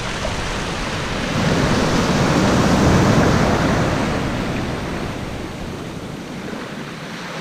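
Ocean surf washing in around the legs in shallow water: a wave swells up about a second and a half in, then fades away.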